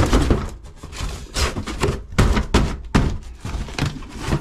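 Cardboard shipping box being handled: its flaps and an inner cardboard divider are pulled and knocked, giving several dull thuds with scraping and rustling of cardboard between them.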